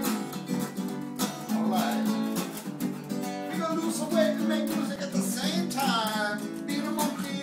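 Acoustic guitar strummed in a steady rhythm, with a voice singing a few short phrases over it.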